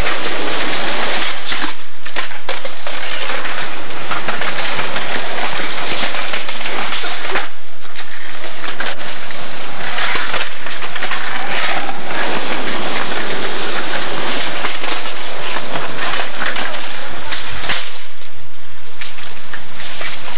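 Skateboards rolling on concrete, with scattered clacks and knocks of boards and wheels, under a loud, constant rushing noise from the camcorder's overloaded microphone.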